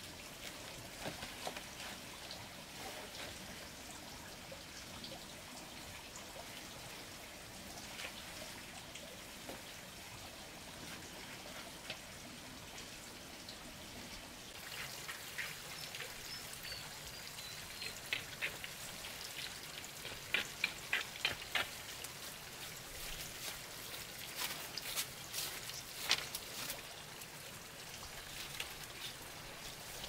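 Dripping and trickling water: a steady light patter that gets busier in the second half, with clusters of sharp drips.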